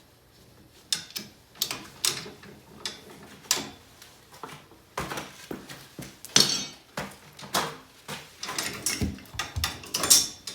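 Metal hardware and hand tools clinking and clanking irregularly while parts of a garage door opener's arm and bracket are loosened. The sharp clicks start about a second in and come thicker in the second half.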